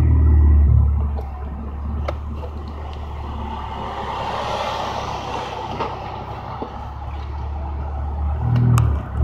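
Straight-piped 2014 Ford Focus ST's turbocharged 2.0-litre four-cylinder heard from inside the cabin: a loud exhaust note that eases off about a second in, then a low steady drone under road noise. Near the end the engine note climbs again as the car accelerates, with a brief dip.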